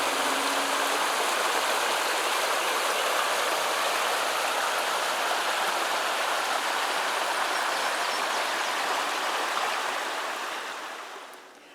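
Steady rushing water, like a flowing stream, fading out over the last couple of seconds.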